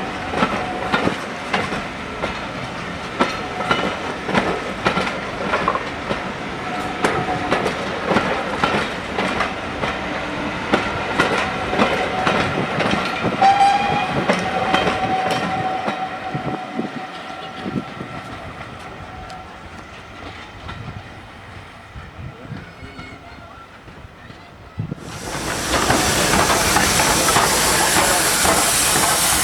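Steam-hauled train running past, its wheels clicking over rail joints, with a brief steady high tone about halfway through, then fading away. About 25 seconds in, a loud steady hiss of steam from a locomotive starts suddenly.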